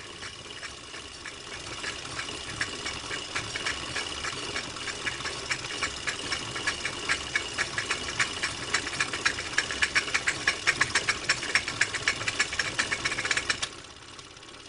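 Rapid, even mechanical clicking over a steady hiss. The clicks grow louder and then stop abruptly near the end.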